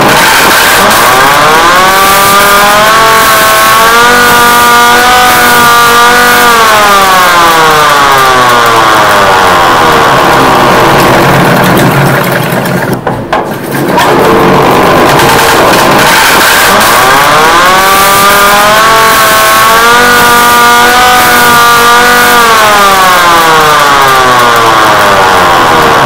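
Emergency alert alarm siren, very loud, with harsh noise throughout. It wails twice: each time it rises over about two seconds, holds, then slides back down, with a brief drop in the noise about halfway between.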